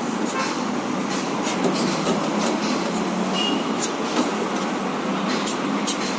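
Steady traffic noise from a busy road, with scattered light clicks and knocks over it.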